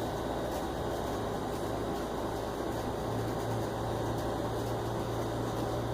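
Steady mechanical hum with a low tone under an even hiss, unchanging throughout.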